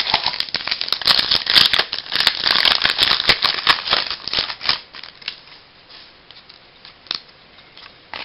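Baseball cards being handled and flipped through by hand: a quick run of crisp clicks and rustles for about five seconds, then a few scattered clicks.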